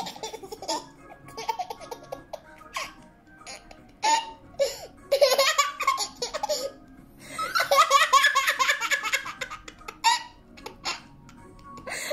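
Toddler laughing in repeated bursts of giggles, the longest and loudest laugh running for about two seconds in the second half.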